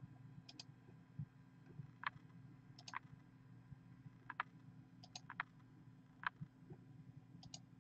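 Faint computer mouse clicks, single or in quick pairs, about one every second or so, over a low steady hum.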